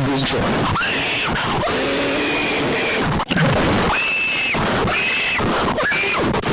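Harsh, distorted noise like static, with short pitched cries that sound like screaming laid over it, and a brief cut-out a little over three seconds in.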